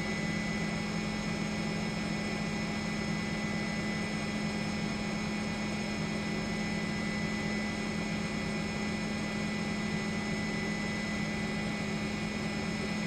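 Steady drone of a helicopter's turbine engine and rotor, heard from inside the aircraft: a low hum with a steady high whine over it.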